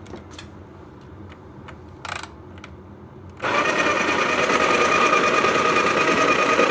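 Breville Dose Control burr grinder switched on about three and a half seconds in, running steadily with a constant whine as it grinds coffee beans. Before it, a few light clicks.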